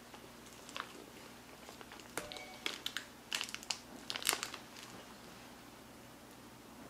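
Foil-lined paper wrapper on a block of cream cheese crinkling and crackling as a knife cuts through the block and lifts a slab out. The crackles come in quick clusters, loudest a little past the middle, then stop.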